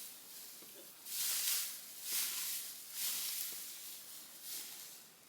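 Soft, fairly faint swishing strokes through grass or hay, coming roughly once a second.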